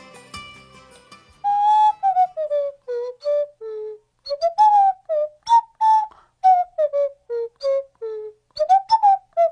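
Solo melody in a whistle-like tone: short, separate notes that slide up and down in pitch, opening a song. A guitar-backed song fades out during the first second or so.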